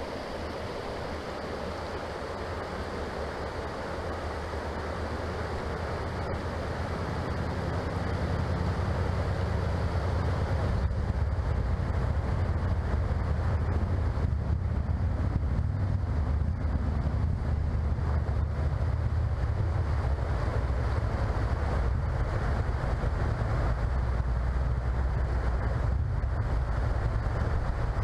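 Shallow creek water rushing and splashing over rocky riffles, a steady hiss of running water. A low rumble of wind on the microphone builds up over the first ten seconds or so and then stays.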